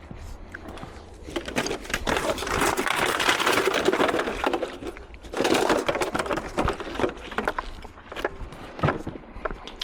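Scrap being handled and loaded onto a truck: two long spells of scraping and rustling full of sharp clicks and clatters, about a second in and again just past the middle, then scattered knocks.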